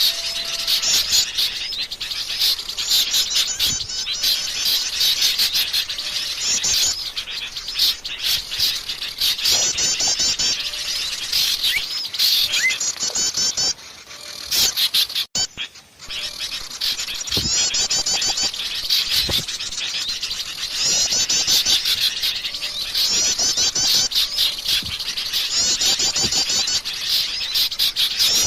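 Wild forest birds singing, repeated high, rapid trilling phrases over a chorus of chirps, briefly dropping out about halfway through.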